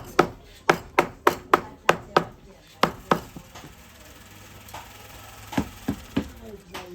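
A quick series of sharp knocks, about three a second, that stops about three seconds in, followed by a few scattered knocks near the end.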